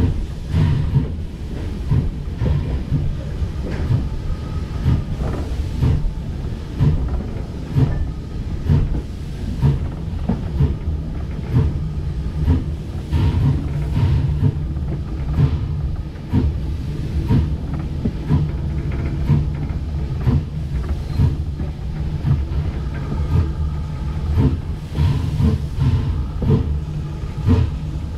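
Pennsylvania Railroad #331 steam locomotive running along the track, heard from its front end: a steady low rumble of wheels on rail with irregular clicks and knocks.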